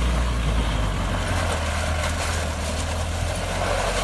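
Toyota Land Cruiser 60 series engine running steadily at low revs as the truck crawls through a shallow river crossing, a low steady drone under the splash of water around the wheels.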